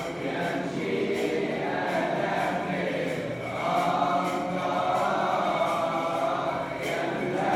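A choir of voices chanting a hymn in long, blended sustained lines. It dips briefly about halfway through, then swells again.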